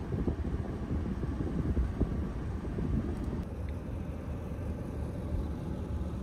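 Steady low rumble of a truck driving on a snowy forest road, heard from inside the cab.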